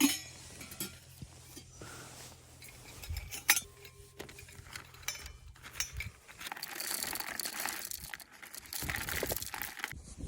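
Camp coffee gear being handled: a few sharp clinks and knocks of metal and glass, the loudest right at the start and another about three and a half seconds in, with lighter rattling and rustling in between.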